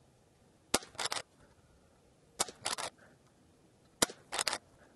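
Umarex Zelos .22 bullpup PCP air rifle fired three times, about a second and a half apart, each shot a short sharp crack followed a fraction of a second later by a softer clatter.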